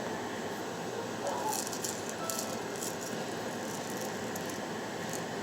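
Stainless-steel salt and pepper grinder grinding: a short run of crackling clicks about a second and a half in, over a steady hiss.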